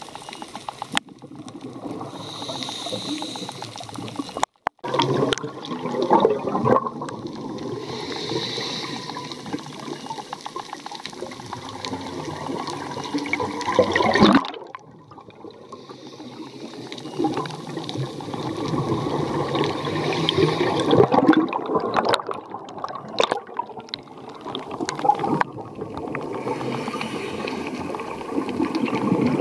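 Water gurgling and sloshing in an uneven wash, which cuts out or changes abruptly several times.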